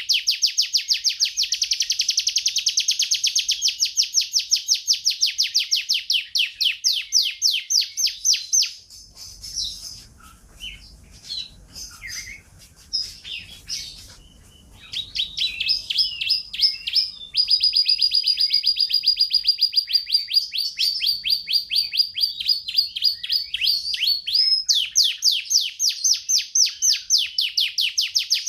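Domestic canary singing in long, rapid trills of repeated high notes. About nine seconds in the trills break into a few seconds of quieter, varied twittering, then the fast rolls resume.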